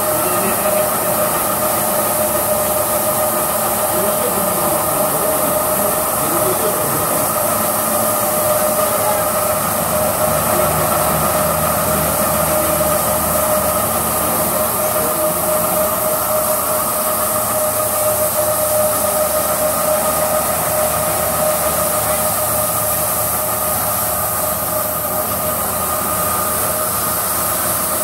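Automatic carpet washing machine running: its motors turn a row of rotating scrubbing brush discs over a wet carpet, with a steady whine over an even mechanical noise.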